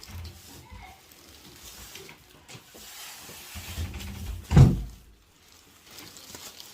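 Quiet handling and rustling, then a single loud, dull thump about four and a half seconds in.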